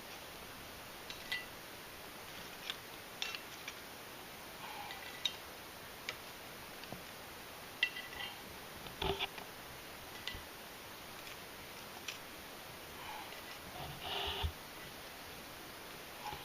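Scattered light clinks and taps of cooking utensils and dishes, with small clusters of clatter about nine seconds in and again near the end.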